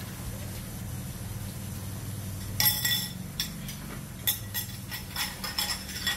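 A spoon clinking repeatedly against a bowl while shampoo is stirred in it. There are about ten ringing clinks in quick, uneven succession, starting about two and a half seconds in, over a steady low hum.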